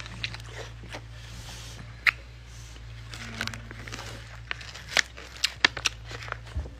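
Chewing of a dill pickle in chamoy, with the crinkle of its plastic pouch as it is handled: a string of sharp clicks and crackles at irregular intervals, the sharpest about two seconds in and a cluster around five to six seconds in, over a steady low hum.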